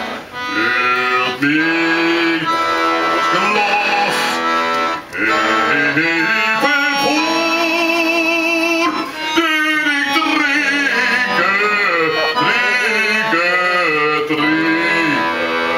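Music: a singer with a strong, wide vibrato in a classical bel canto style, over instrumental accompaniment, with brief breaks between phrases.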